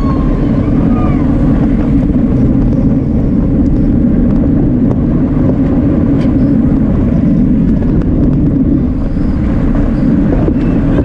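Steady low rumble of wind buffeting a bicycle-mounted camera's microphone while riding at race speed in a pack of road bikes.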